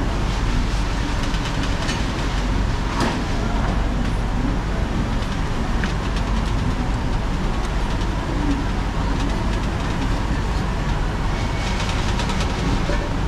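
Busy city street ambience: a steady rumble of traffic, with a sharp clack about three seconds in.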